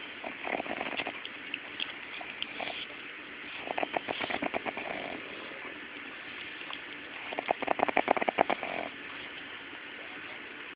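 Pug puppy snoring in its sleep: three rattling snores about three and a half seconds apart, each lasting about a second or more, the last one the loudest.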